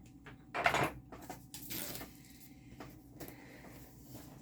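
Packaging of a diamond-painting kit being handled and worked open by hand: a few short rustles with scattered clicks and taps.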